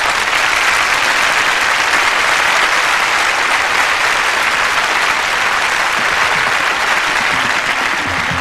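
Large audience applauding steadily after a contestant is introduced on stage.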